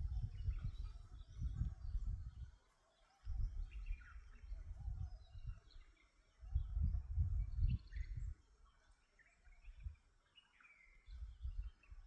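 Small birds chirping outdoors in short, scattered calls that fall in pitch, over a heavy low rumble that comes and goes in stretches of a few seconds.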